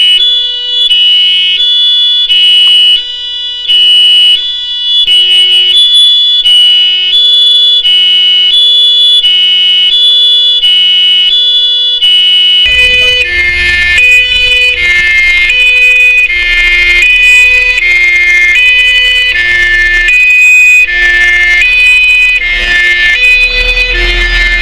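Two-tone hi-lo fire siren on a Mercedes-Benz 308D fire van, its two tones alternating about every 0.7 s. About halfway it switches abruptly to the two-tone siren of a Jelcz 004 fire tender, with the truck's engine running loudly underneath.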